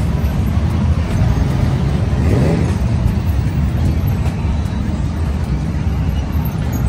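A pack of Honda Gold Wing touring motorcycles idling and rolling off slowly, a dense, steady engine rumble. One engine revs up and back down about two and a half seconds in.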